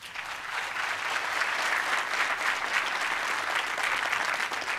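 Audience applauding at the end of a conference talk: many hands clapping together, starting abruptly and staying steady.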